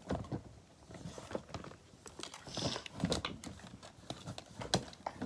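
Small food-shaped fidget toys being handled and set down one by one: scattered, irregular light clicks, taps and rustles.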